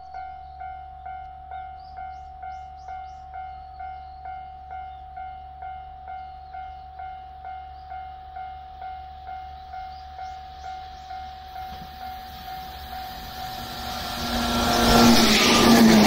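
Japanese level crossing warning bell ringing steadily, about two dings a second. A yellow electric commuter train approaches: its running noise rises from about twelve seconds in and drowns the bell as it passes close by near the end.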